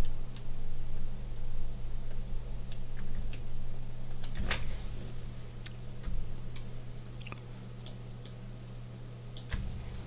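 Scattered light clicks and taps from a computer pointing device as a digital stencil is dragged and repositioned, the strongest about halfway through, over a steady low electrical hum.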